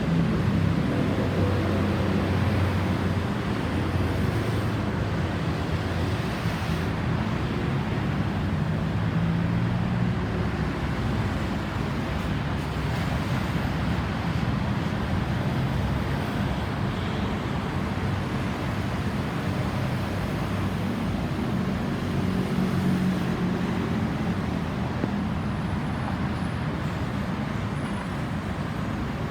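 Road traffic noise: vehicle engines running, with a low hum that swells and fades, over steady road noise.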